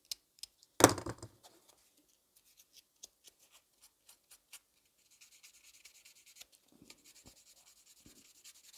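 A small hand tool scraping the edge of a plastic model-kit part to clean off its moulding marks: faint, fine scratching with scattered small ticks, more continuous in the second half. One louder, sharp knock about a second in.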